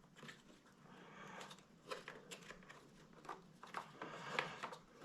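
Faint handling noises on a Bissell ProHeat carpet cleaner: scattered light clicks and rustling as its plastic parts and the replacement belt are worked by hand.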